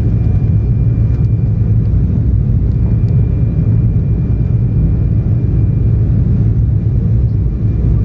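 Jet airliner cabin noise at a window seat in flight: a loud, steady low rumble of engines and rushing air. A faint thin whine sits above it and stops about six and a half seconds in.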